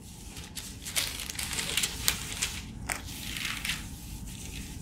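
Clear plastic wrap crinkling and rustling in quick, uneven crackles as it is handled.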